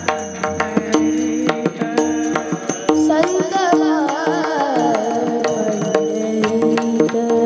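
Marathi varkari bhajan music: steady sustained harmonium tones and a regular beat on a hand drum with small cymbals. A singing voice with wavering, ornamented lines comes in about three seconds in.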